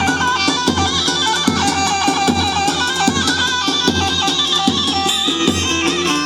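Live wedding band music: an amplified instrumental passage with a steady drum beat under a melody line.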